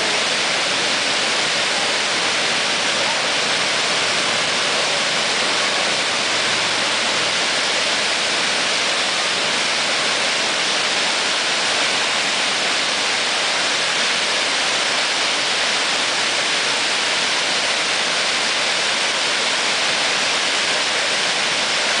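Multnomah Falls pouring over its rocky lip: a loud, steady rush of falling water that does not change.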